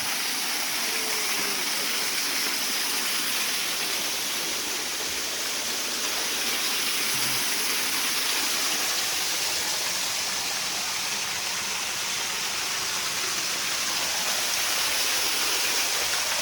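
Waterfall rushing steadily, an unbroken hiss of falling water.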